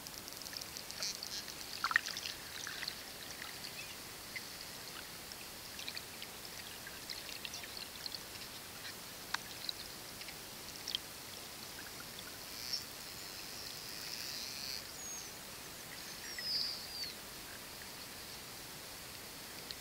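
Pilot whales heard underwater: scattered clicks and crackles throughout, with a few short whistles, one of them falling in pitch, in the second half.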